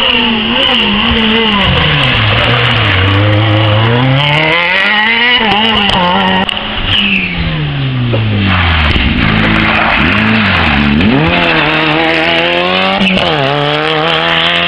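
Rally car engines at full throttle, the pitch climbing and dropping again and again through gear changes and lifts off the throttle. The engine sound stays loud throughout.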